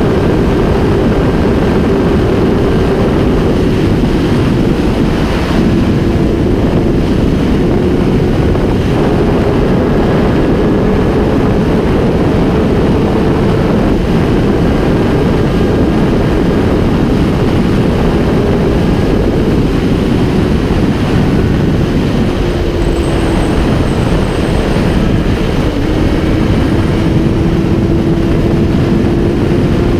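Honda CBR1000RR's inline-four engine held at high revs at speed, under heavy wind rush on the microphone. The engine's pitch sags slightly about two-thirds of the way through, then climbs again near the end.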